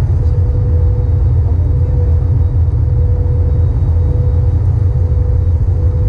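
Steady cabin noise inside an Airbus A321neo airliner in flight: a loud, even low rumble of engines and airflow, with a faint whine held on one pitch.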